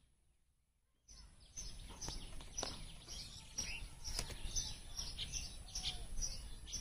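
Small birds chirping outdoors, many short high chirps repeating several times a second, over a low background rumble with a few sharp clicks. The sound begins about a second in after a moment of silence.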